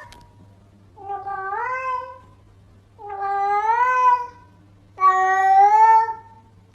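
A domestic cat meowing three times, long drawn-out meows about two seconds apart, each rising in pitch at the start and then holding.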